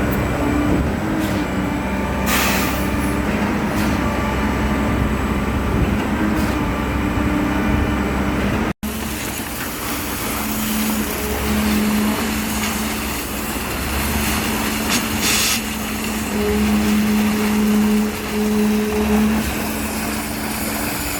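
Heavy diesel engine of a concrete pump truck running steadily, with a short hiss about two and a half seconds in and another near fifteen seconds. The sound drops out for an instant near nine seconds.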